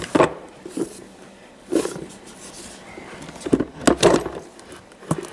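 Cardboard mailing box being handled, with a series of irregular knocks, scrapes and rustles, loudest in clusters about two seconds and four seconds in.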